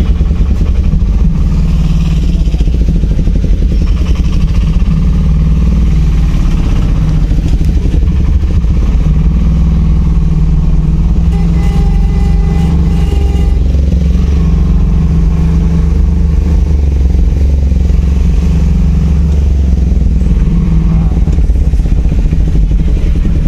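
Car engine and road noise heard from inside the cabin while driving slowly along a town street: a loud, steady low drone.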